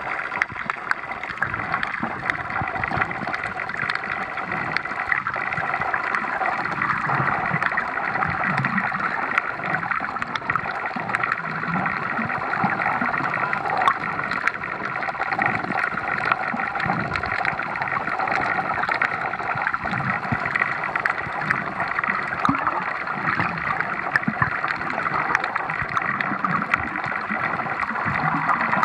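Underwater sound recorded through a camera's waterproof housing: a steady muffled water rush with constant fine crackling, and irregular low rumbles from the swimmer's movement.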